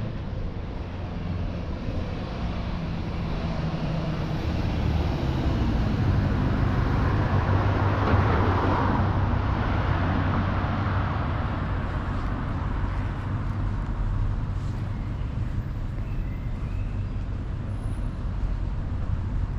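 Road traffic, with one vehicle passing close by: its tyre and engine noise swells to a peak about eight seconds in, then fades, over a steady low rumble of traffic.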